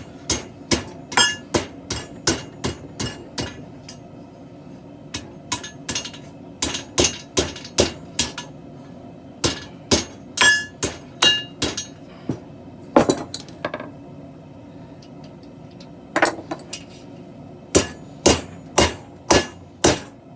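Hammer blows on steel, each with a short metallic ring, coming in quick runs of several strikes with pauses between: forging work on a steel bow.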